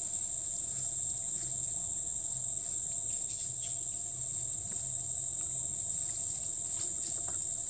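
Insects buzzing steadily in one unbroken high-pitched note.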